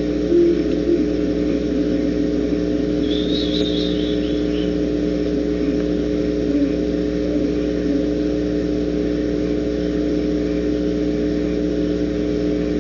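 Steady electrical hum from a barn owl nest-box camera's audio feed, several fixed low tones over a hiss. About three seconds in there is a brief high-pitched sound lasting about a second.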